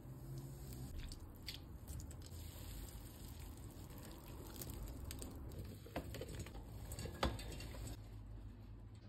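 Wet black mulberries scooped by hand out of a bowl of water, with dripping and squishing, then dropped into a stainless steel pot with a few light knocks, the sharpest about seven seconds in.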